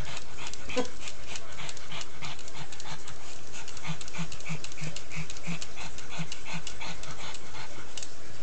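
Pug panting close up, quick short breaths about three a second through the middle.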